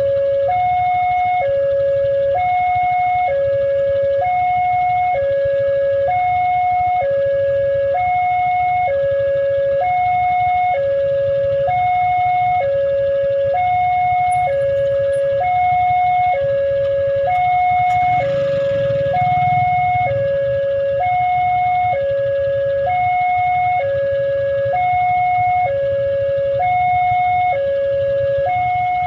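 Railway level-crossing warning siren sounding its steady two-tone alarm, a high and a low tone taking turns about once a second, the signal that the crossing is closed for an approaching train. A brief low rumble passes about two-thirds of the way in.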